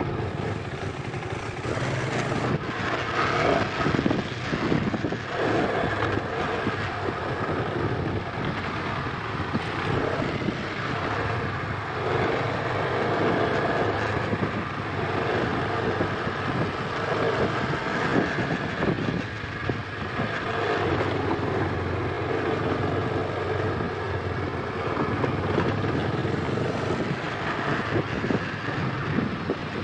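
KTM 250 Adventure's single-cylinder engine running steadily as the motorcycle rides a dirt trail, under a constant rush of wind and road noise.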